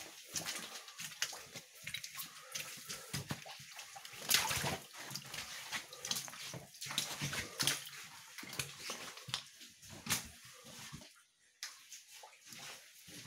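Footsteps splashing and wading through shallow water in a mine tunnel, an irregular run of sloshes, the loudest about four seconds in.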